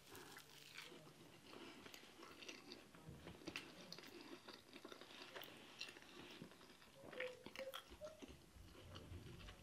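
Faint, close-up chewing and wet mouth clicks of someone eating a mouthful of injera with stew.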